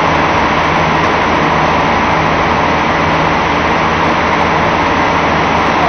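A fishing boat's onboard machinery running steadily: a constant loud drone with a low hum underneath, unchanging throughout.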